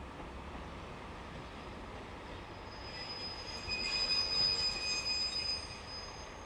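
High-pitched metallic squeal from the wheels of a diesel shunting locomotive and the 789 series electric train it is hauling as they roll slowly and come to a stop. The squeal starts about three seconds in, is loudest around four to five seconds, and dies away near the end, over a low steady rumble.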